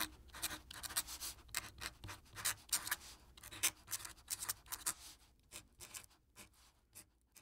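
Felt-tip marker drawing on a white surface in many quick, short scratching strokes, dense at first and thinning out over the last couple of seconds.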